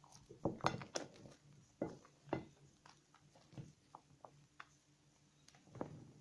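Wet soap slivers being lathered and squeezed by hand. Scattered soft squelches and clicks come in uneven clusters, busiest in the first second.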